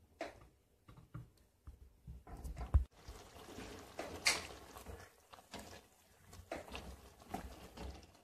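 Spatula scraping and knocking against a cooking pot as chicken pieces and softened tomatoes are stirred, with wet stirring sounds. There is a dull thump about three seconds in.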